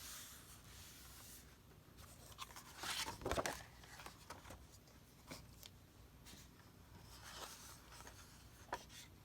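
Paper being handled: soft rustling and crinkling with a few light taps, the loudest burst about three seconds in.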